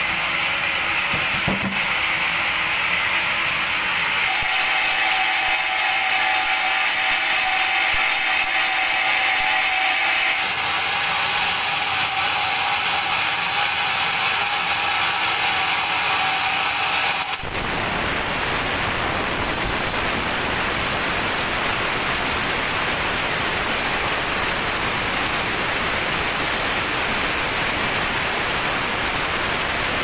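Band sawmill running with a steady mechanical whine. About halfway through, the sound switches abruptly to a steady, loud hiss as the band-saw blade cuts through a teak log.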